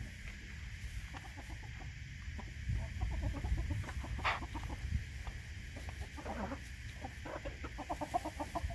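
Chickens clucking, with many short clucks throughout and one louder, sharper call about halfway through, over a steady low rumble.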